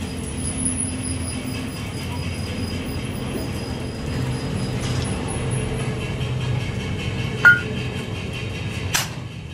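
Steady low mechanical rumble of the workshop background, with a sharp metal clank about seven and a half seconds in and another knock near the end, as the steel torque-arm bushing parts are handled and set in place.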